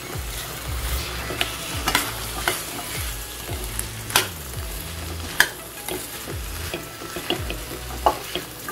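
Metal spoon stirring boiled black chickpeas into frying masala in a steel pan, with irregular scrapes and sharp clacks of the spoon against the pan.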